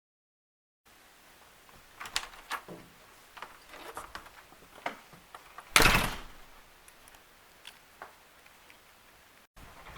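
Plastic box fan being knocked about: scattered sharp clicks and knocks, then one loud impact about six seconds in.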